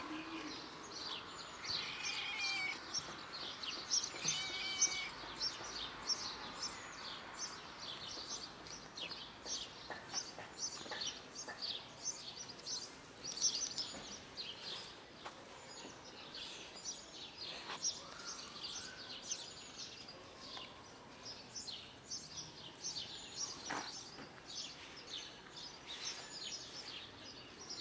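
Small birds chirping, a dense, continuous stream of short high chirps over steady outdoor background noise.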